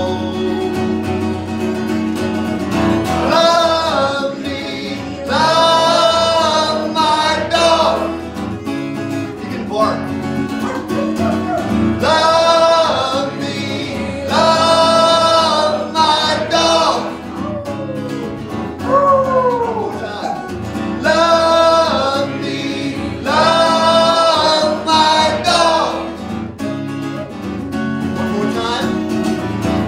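A man singing a song in long held phrases, accompanied by strummed acoustic guitars.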